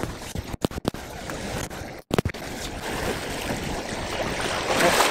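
Sea water sloshing and splashing against a boat's hull, a steady rushing noise that grows louder toward the end. The sound cuts out briefly a few times in the first half.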